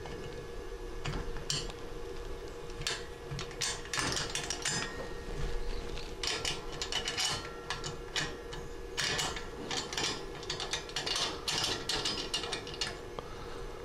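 Stainless-steel clamp being fitted and tightened by hand where the condenser joins the top of a still column: a run of small metallic clicks and clinks, over a steady faint hum.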